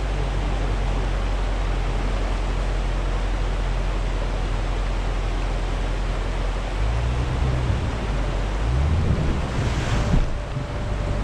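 Steady rush of river water with a vehicle engine running low underneath; the engine's pitch rises and falls briefly about seven to nine seconds in. A short burst of noise comes about ten seconds in.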